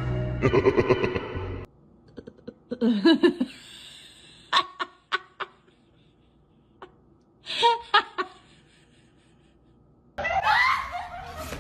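Short bursts of a person's laughter, separated by quieter gaps, with a louder, busier sound starting near the end.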